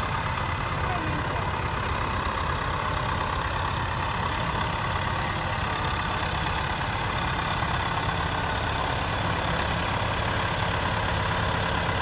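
New Holland 7740 tractor's diesel engine running steadily at low revs as the tractor moves slowly, with a faint high whine joining about halfway through.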